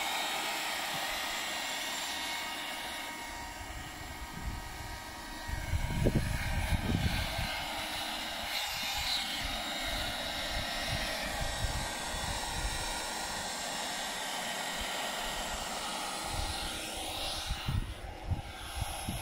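Electric air pump running steadily, blowing air into the chamber of an inflatable PVC boat: an even motor whine with rushing air, and a few low bumps about six to seven seconds in.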